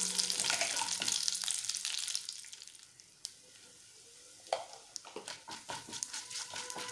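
Peanuts, dals and curry leaves frying in oil in a nonstick pan, sizzling as a wooden spatula stirs them. The sizzle dies away about halfway through. Then the spatula clicks and scrapes against the pan as turmeric powder is stirred in.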